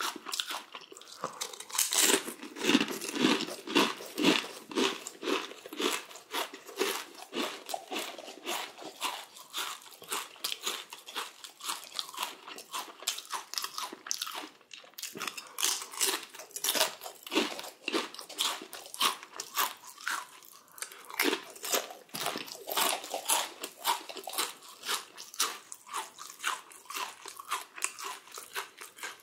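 A person chewing and crunching food, a steady run of crisp bites and chews a few times a second, with a brief pause about fifteen seconds in.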